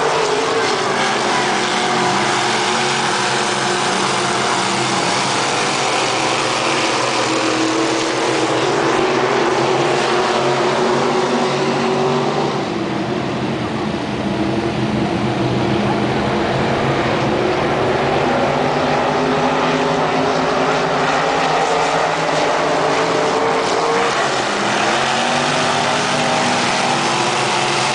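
Several 360 dirt modified race cars running hard on a dirt oval track, their V8 engines overlapping, with pitches rising and falling as they lap. The sound eases off briefly about halfway through.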